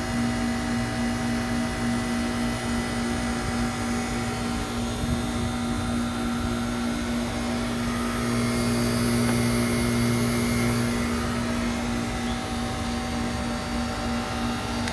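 Carrier TECH2000 38YKC heat pump outdoor unit running: a steady electrical hum over a constant airy rush, growing a little louder about eight seconds in for a few seconds.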